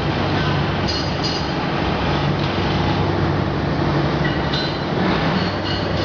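Steady industrial din of a running steel-melting furnace plant: a constant low hum under a broad rushing noise, with a few brief high metallic rings.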